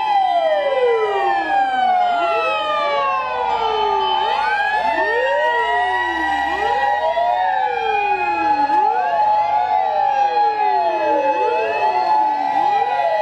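Sirens of a convoy of Japanese fire engines on an emergency run, many sounding at once. Their rising and falling wails overlap continuously over steady held tones.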